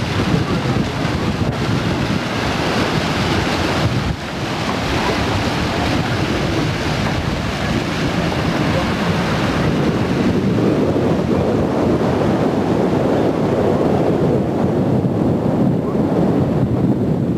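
Strong wind blowing across a camcorder microphone: a loud, steady rushing noise with no tones in it, dipping briefly about four seconds in.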